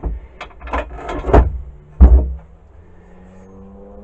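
Knocks and clatter of metal parts of a Black & Decker D-994 lathe attachment being handled and fitted together, the loudest about a second and a half and two seconds in. After that, a faint low hum that rises slowly in pitch.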